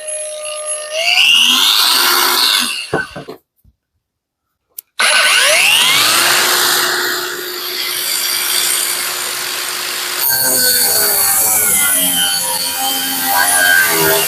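Parkside Performance PPWSFA 20-LI A1 cordless brushless angle grinder running and working the material under load, with a steady tone over dense grinding noise. It cuts out for about a second and a half a little after three seconds in, then starts again with rising whines as it comes back up to speed.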